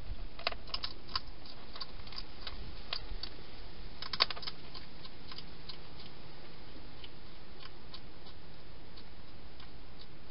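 Hedgehog crunching dry food: irregular sharp crunches, thick at first with a loud cluster about four seconds in, then sparser, over a steady hiss.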